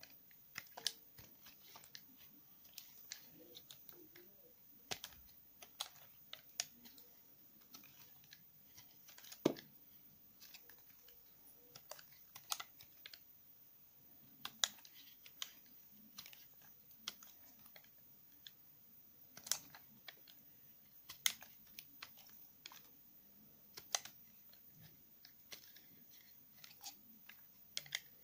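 Bare snap-off knife blade shaving thin curls off a bar of Palmolive olive soap, an irregular run of crisp clicks and scrapes as each curl comes away, with a few louder cracks.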